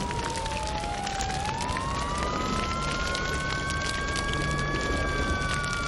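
Fire engine siren wailing slowly: its pitch dips in the first second or so, climbs for a few seconds, and begins to fall near the end, over a steady hiss.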